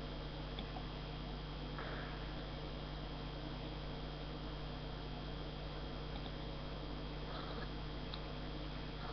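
Steady electrical hum and hiss of a webcam microphone in a small room, with a few faint, brief soft noises.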